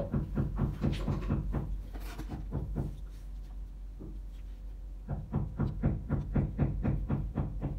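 Background music with a quick, even beat of soft knocks, about five a second, dropping back for a couple of seconds in the middle and returning near the end, over a steady low hum.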